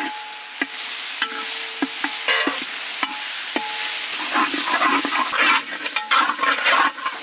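A long metal ladle stirring and scraping spice powders into onion paste in a large metal kadai, over a steady frying sizzle as the masala fries in oil. Several times the ladle knocks the pan, leaving a short ringing tone, with bursts of scraping in the second half.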